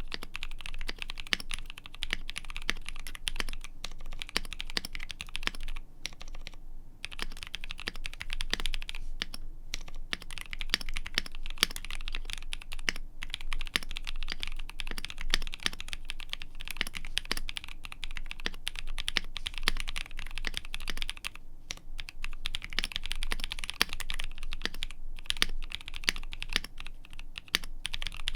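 Steady typing on a custom mechanical keyboard: a KBDfans D65 with a polycarbonate case and gasket-mounted polycarbonate plate, NovelKeys Cream linear switches lubed with Krytox 205g0, and PBT keycaps. The typing stops for a few brief pauses.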